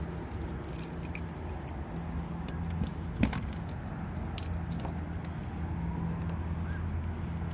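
A steady low machine hum with scattered light clicks and rattles, and one sharper knock about three seconds in.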